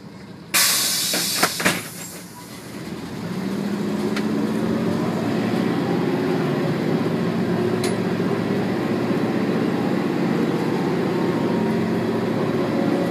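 A loud hiss of compressed air from the bus's pneumatics about half a second in, with two knocks near its end. Then the bus's Mercedes M447hG compressed-natural-gas engine pulls it away from the stop, steady and slowly rising in pitch.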